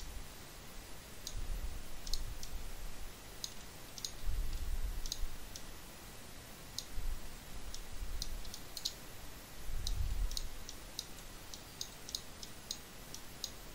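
Computer mouse clicking, a quick irregular series of short, sharp clicks, with a few low, muffled bumps in between.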